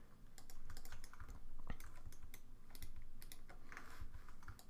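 Computer keyboard and mouse clicking in irregular taps, several a second, as shortcut keys are pressed while editing a 3D mesh.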